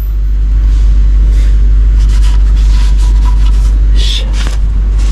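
Loud, steady low rumble, with scattered light knocks and rustles of hands checking the newly fitted oil filter and drain plug for tightness.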